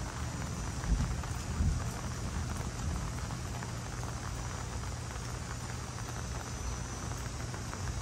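Steady rain falling with a low rumble of thunder underneath, swelling twice in the first two seconds.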